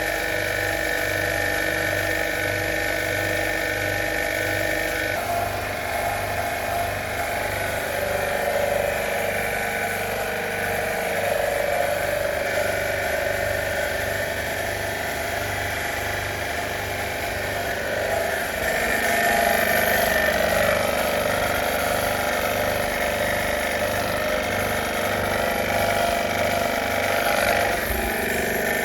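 A motor-driven pump running steadily with an even low pulsing, its pitch shifting about five seconds in and again near twenty seconds, typical of a pressure washer used for air-conditioner cleaning.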